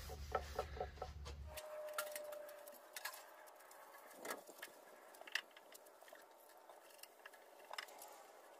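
Faint, scattered clicks and light handling noises from wiping down a pellet grill's painted steel lid and side shelf with a rag and a spray bottle. A low background hum stops abruptly about a second and a half in.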